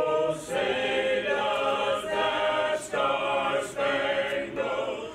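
A small mixed vocal ensemble of four singers, one woman and three men, singing a held choral passage together in parts, with sustained chords that change every second or so.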